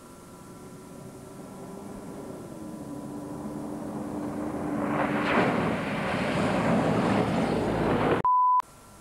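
First-generation Mitsubishi Pajero driving up a dirt track toward the microphone. Its engine grows steadily louder, its note drops in pitch about two and a half seconds in, and from about five seconds it becomes a loud rush of engine and tyre noise as it comes close. Just past eight seconds the sound cuts off abruptly into a short, loud, steady beep.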